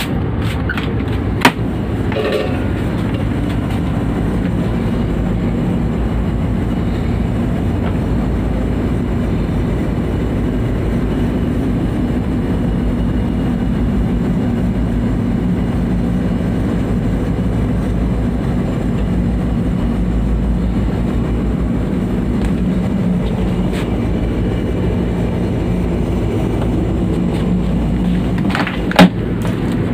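Steady low machinery drone of a merchant ship running throughout, with two sharp knocks, one about a second and a half in and one near the end.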